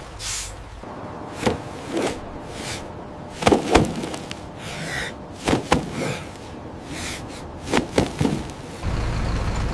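A run of irregular knocks and slams, about ten, several in quick pairs. A steady low engine rumble starts up again near the end.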